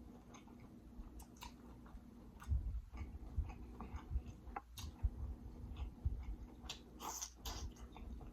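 A person chewing food close to the microphone, with wet mouth clicks and lip smacks throughout. There are a couple of louder, sharper smacks about seven seconds in.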